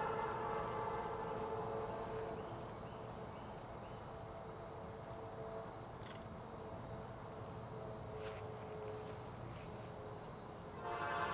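Approaching diesel locomotive's air horn sounding a steady chord. It fades after about two seconds and comes back louder near the end, with insects chirping faintly above it.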